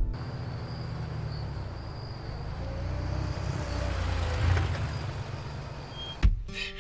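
Red Kia Soul's engine running at low speed with a steady low hum, swelling slightly midway. A single sharp knock near the end.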